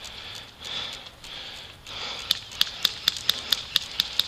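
Footsteps swishing through tall grass. About halfway in, a steady run of sharp clicks starts, about four a second, and these are the loudest sounds.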